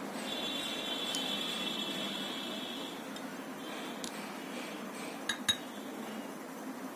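A small glass tumbler and a steel spoon clinking against each other and the rim of a glass bowl while milk is poured. A high thin ringing tone in the first few seconds, then a few sharp clinks, the loudest two in quick succession near the end.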